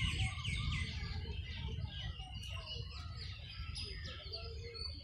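Several birds chirping, many short high notes overlapping, busiest in the first second and thinning out after, over a steady low rumble.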